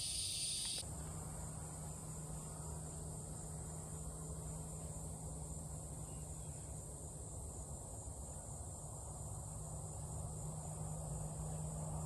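Steady evening chorus of insects such as crickets, an even high-pitched trill that does not let up, with a faint steady low hum underneath.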